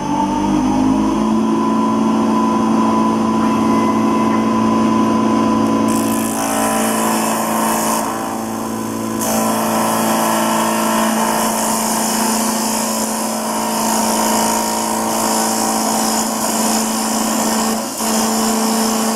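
Electric spindle motor of an automatic wood lathe running with a steady whine that rises in pitch as it spins up. From about six seconds in, its bit cuts into the end of the wooden blank to drill the centre point, adding a loud hissing cutting noise with a short lull a few seconds later.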